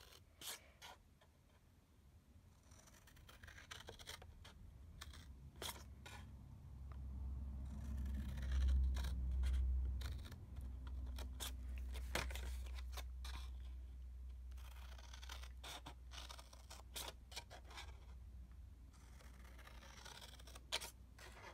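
Large scissors snipping into cardstock along score lines: a series of short cuts with sharp clicks and papery scraping as the card is handled. A low rumble comes in about seven seconds in and is loudest around nine seconds.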